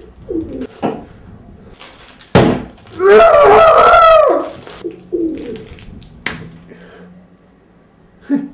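A man's loud, strained growl of effort lasting over a second as he bites and tugs at a plastic food wrapper that won't open. Crackling and clicking of the plastic come before and after, with a sharp crack just before the growl.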